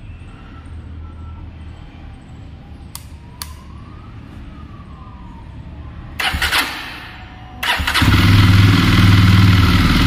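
A Jawa motorcycle's single-cylinder engine being started. Two light clicks come about three seconds in, then a short burst of electric-starter cranking. A second later it cranks again, the engine catches, and it runs loudly from about eight seconds in.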